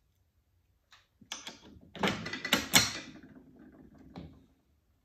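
Metal parts of a 1970 Camaro Z28 Hurst shifter clicking and clattering as they are fitted together and seated by hand during reassembly. There is a single click about a second in, then a busy run of clicks and scraping, sharpest around the middle, ending with one last click.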